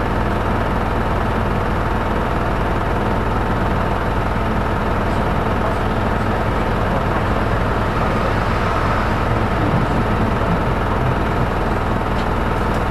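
Cabin noise of a Hino Poncho small diesel bus under way: a steady engine drone with road rumble underneath, holding an even level and rising slightly near the end.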